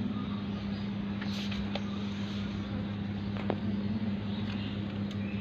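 A steady low mechanical hum over a background of noise, with a couple of faint clicks.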